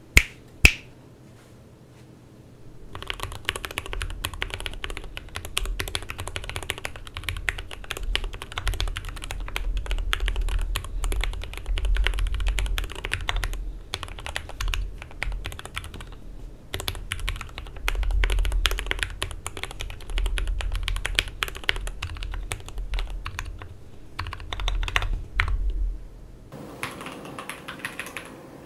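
GMMK PRO mechanical keyboard, with an aluminum plate and Krytox-lubed Milky Yellow linear switches, being typed on steadily in a fast, continuous run of key strikes. Two sharp clicks come right at the start, and the typing begins about three seconds in.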